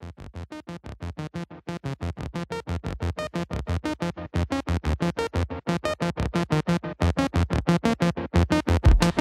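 Channel intro music: a rapid, evenly pulsing line of short notes, about six a second, getting louder over the first few seconds.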